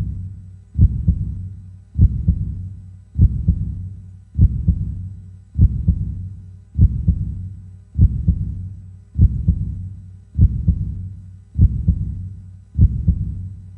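Heartbeat sound effect: a slow, steady, deep lub-dub, about one double thump every 1.2 seconds (roughly 50 beats a minute).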